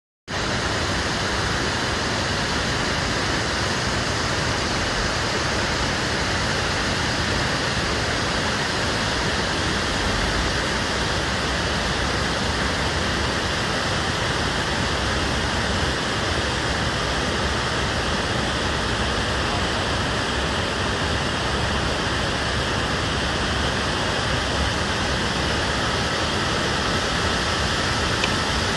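Göksu Waterfall's falling water rushing, a steady, dense hiss that cuts in abruptly just after the start and holds unchanged.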